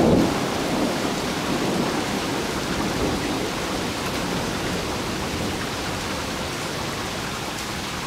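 Steady rain from a summer thunderstorm, an even hiss gradually easing. The tail of a thunder rumble dies away in the first moments.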